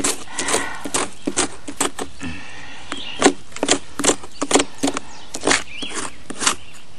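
Metal hand tool scraping and picking at the decayed, insect-eaten surface of an antique pine log, in short scratchy strokes about two or three a second, clearing out loose rotten wood.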